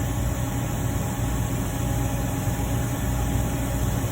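A steady low mechanical hum with background hiss, unchanging throughout.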